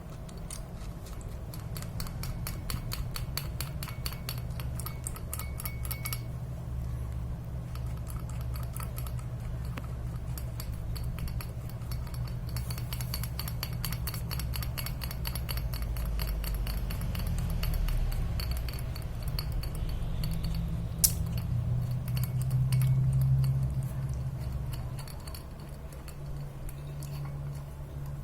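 Small metal parts of a bicycle speed gear being handled and fitted together: runs of rapid light clicking for the first six seconds and again in the middle, a sharper click a little past twenty seconds in, over a low hum.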